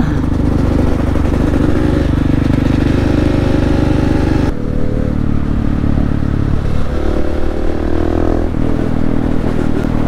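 Supermoto motorcycle engine running at a steady pitch, the sound changing abruptly about halfway through, with a short rise in pitch a little later.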